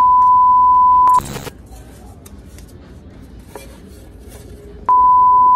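Edited-in censor bleep: a loud, steady single-pitch beep tone of the kind played with television colour bars. It cuts off about a second in with a brief burst of static hiss, and starts again about five seconds in.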